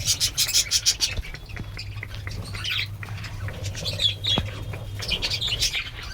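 Many small pet birds chirping rapidly and continuously in short high calls, over a steady low hum.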